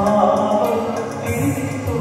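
Devotional church music: singing over steady instrumental accompaniment.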